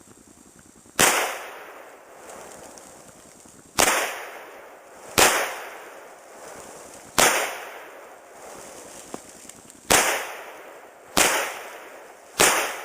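Seven shots from an SKS semi-automatic rifle firing 7.62×39 mm ammunition, unevenly spaced one to three seconds apart, each followed by a short echo.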